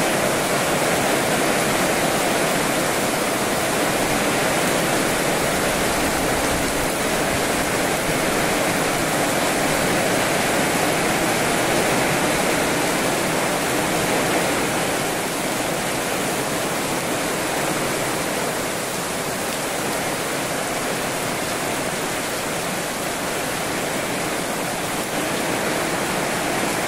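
Heavy rain falling steadily on the roof, leaves and paving, with water pouring off the roof edge; it softens slightly about halfway through.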